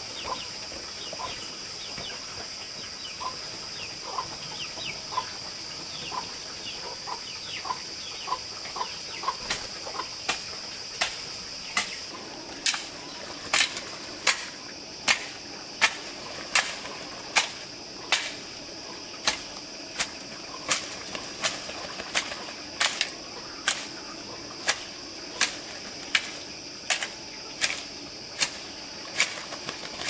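Chickens calling in short falling chirps and pips over a steady high-pitched drone. About ten seconds in, a regular series of sharp knocks begins, roughly one every three-quarters of a second, and they soon become the loudest sound.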